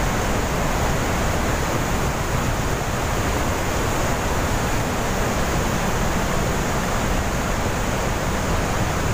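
Glacier-fed Trümmelbach waterfall pouring through its rock gorge: a loud, steady, unbroken rush of water.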